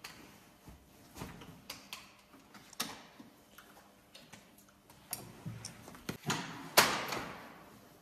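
Clicks and clunks of a baby stroller being folded up, ending in a loud clatter about seven seconds in that echoes round an underground car park.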